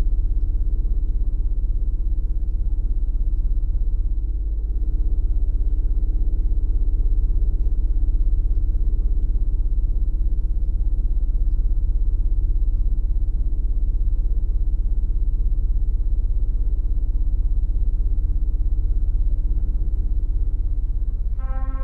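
A loud, steady low rumbling drone with a faint thin high whine above it, starting abruptly. Near the end a deep, horn-like sustained note with many overtones comes in over it.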